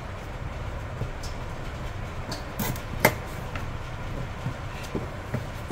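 Cardboard phone box being handled and turned over in the hand: a few light clicks and taps, the sharpest about three seconds in, over a steady low background hum.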